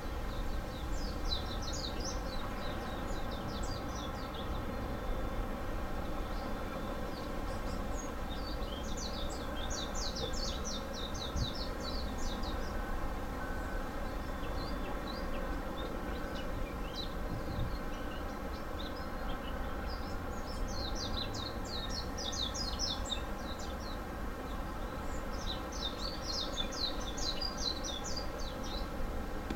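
Small birds calling in four bursts of rapid, high chirping trills, over a steady low rumble and hum.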